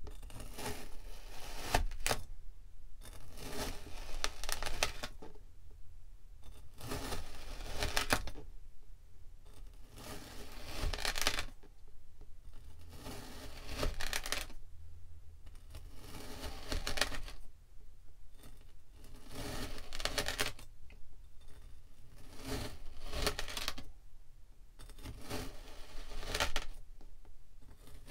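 A long thin blade pressed down through a slab of kinetic sand, cut after cut, each a crunchy crumbling hiss lasting about a second, roughly one every one and a half to two seconds.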